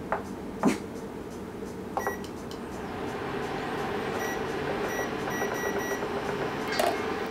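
Portable induction cooktop being turned up to boil: taps on its control panel, then a series of short electronic beeps. Its fan starts a steady hum that grows from about three seconds in.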